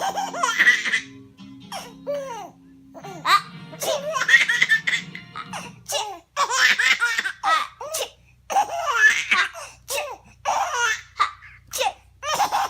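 Baby laughing in five or six bouts of belly laughter with short gaps between, set off by an older child's sneezes.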